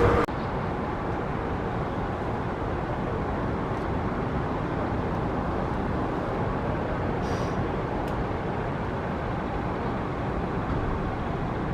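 Steady, even jet engine noise from an Airbus A330-200 freighter heard at a distance, with no distinct whine. Just after it starts, a louder sound with steady tones cuts off abruptly.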